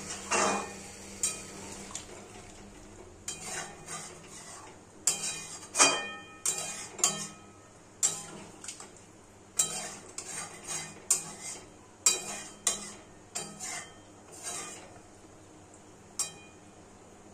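A flat metal spatula scrapes and knocks against a metal kadai while stirring chunks of jackfruit and potato in thin gravy. The strokes come irregularly and some leave a brief metallic ring. They stop shortly before the end.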